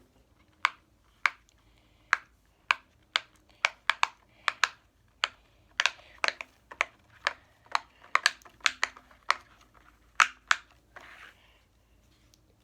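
A run of sharp, irregular clicks or taps, roughly two a second, stopping about a second before the end.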